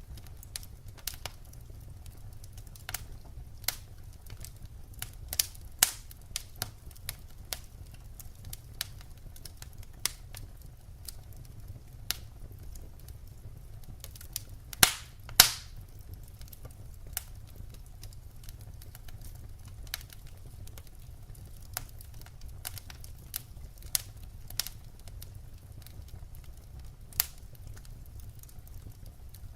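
Wood fire crackling: irregular sharp pops and snaps over a low steady rumble, with two louder pops about halfway through.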